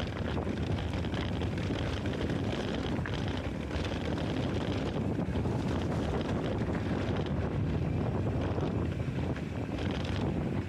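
Wind rushing over a small action camera's microphone on a moving mountain bike, a steady low rumble mixed with the bike's tyres rolling over a dry dirt trail.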